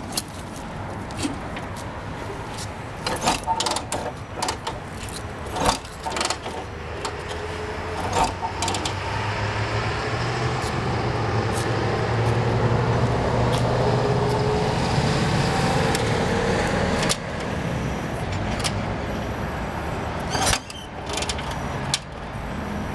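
Metallic clicks and clunks of a Harley-Davidson WLA's controls and kick-starter as the motorcycle is readied and kicked over for starting. A steady engine-like drone builds in the middle and stops abruptly a little past halfway.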